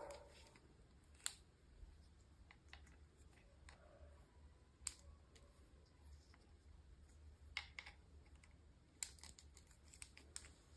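Near silence with a handful of small sharp clicks and taps scattered irregularly, as from small objects being handled.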